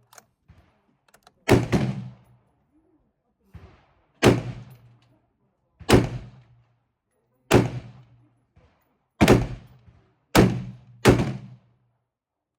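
Rifle shots, seven in all, irregularly spaced one to two seconds apart, with the last two coming close together; each crack dies away over about half a second.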